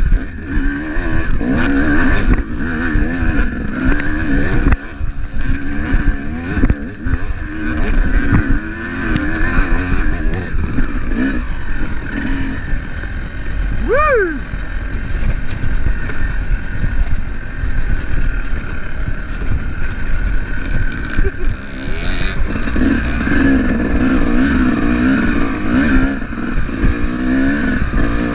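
Dirt bike's engine running on the move, its revs rising and falling again and again with the throttle. About halfway through there is a short falling whistle.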